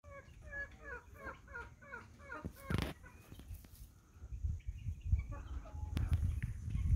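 Cochin chickens clucking, a quick run of short calls about three or four a second over the first couple of seconds. A brief loud rustle follows near 3 s, then low rumbling and thumps.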